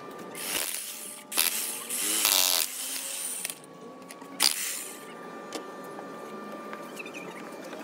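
Electric jackhammer running in short spells, its chisel pounding into rubble, with the longest and loudest spell from about one and a half to nearly three seconds in. After about five seconds the hammer stops, leaving only a low, steady background noise.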